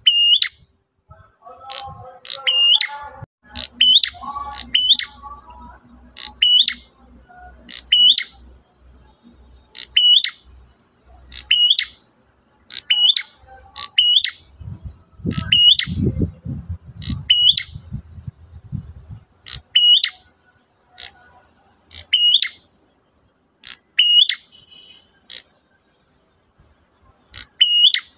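A prenjak merah (prinia) repeats the same short, high call about once every second or so. Each call is a quick downward sweep followed by a note that climbs. A low rumble comes in about halfway through and lasts a few seconds.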